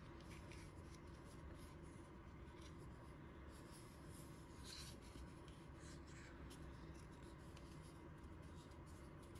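Faint scratching and light clicking of a small plastic toy figurine being turned over and handled in the hands, over a low steady room hum.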